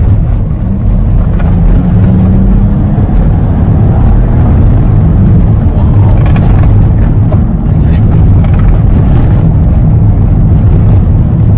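Cabin sound of a freshly ECU-remapped 2012 Toyota Alphard 3.5-litre V6 being driven hard: loud, low engine drone and road noise inside the car.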